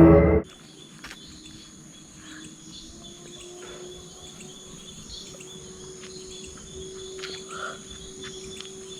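Night insects, crickets among them, chirping in a steady high chorus, with a faint steady low hum underneath. Background music cuts off about half a second in.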